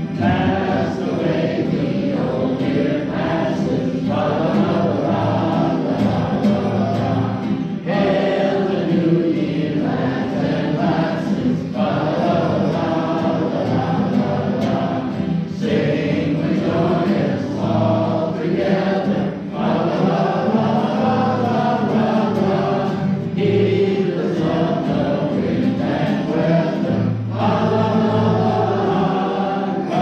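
A congregation singing a song together with organ accompaniment, in phrases of about four seconds with short breaks between, over held low organ notes.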